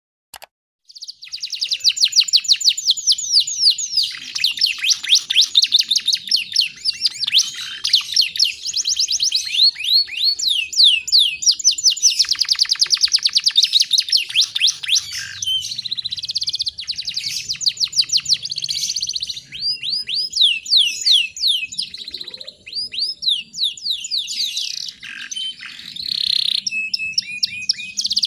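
Canary singing a long, loud song of rapid trills: quick runs of short down-sweeping notes that change speed and pattern every few seconds, starting about a second in.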